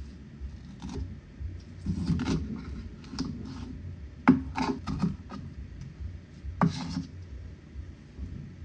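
Chef's knife chopping bell peppers on a cutting board: irregular knocks of the blade on the board, with two sharper knocks about halfway through and near the end.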